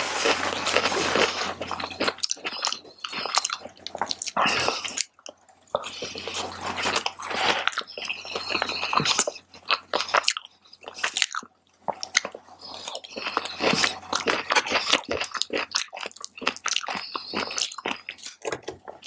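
Close-miked eating: a person biting and chewing mouthfuls of tofu fried rice, with irregular wet mouth smacks and soft crunches and brief pauses between bites.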